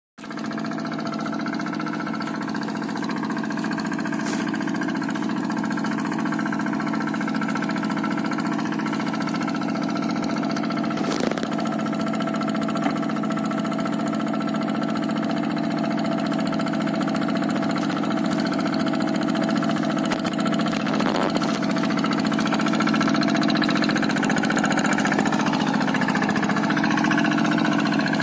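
Quick G1000 two-wheel hand tractor's single-cylinder diesel engine running steadily under load while plowing a rice paddy, growing slightly louder near the end.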